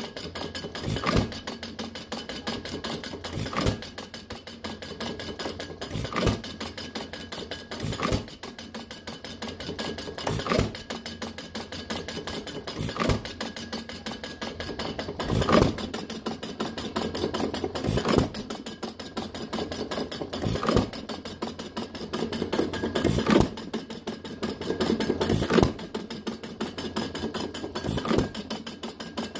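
Fuller & Johnson 1½ hp single-cylinder hit-and-miss engine running, firing with a loud knock about once every two and a half seconds and coasting between firings with a fast, light mechanical clatter.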